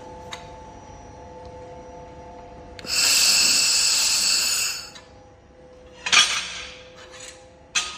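2.5 kW handheld laser welder working 3 mm mild steel. A steady hum of several tones gives way, about three seconds in, to a loud hiss lasting about two seconds as a weld is run, then shorter hisses near the end.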